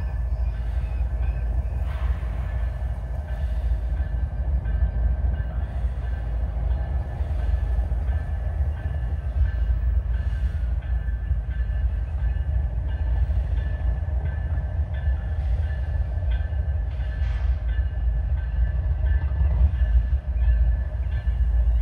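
Two GE ES44AH diesel locomotives running light, approaching with a steady low rumble that grows a little louder near the end.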